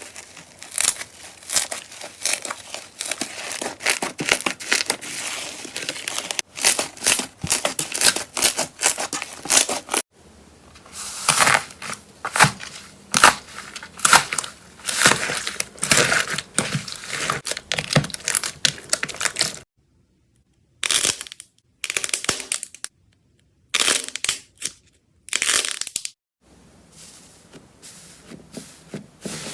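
Slime being squeezed and pressed by hand, giving dense runs of crackling, popping clicks. The sound comes in several segments that change abruptly, with short silent gaps near the end.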